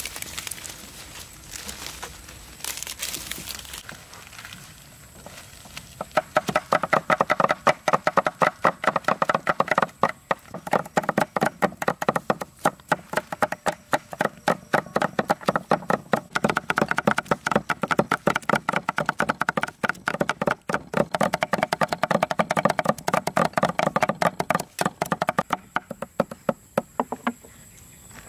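Leafy greens rustling as leaves are stripped from their stems, then, from about six seconds in, two cleavers chopping the greens on wooden chopping boards in a rapid, continuous run of knocks, stopping shortly before the end.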